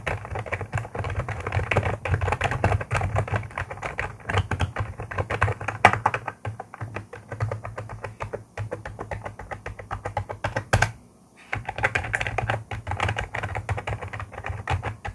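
Fast, continuous typing on the membrane keys of a 1stPlayer K8 Fire Dancing gaming keyboard, a dense run of key clicks. It pauses briefly about eleven seconds in, then resumes.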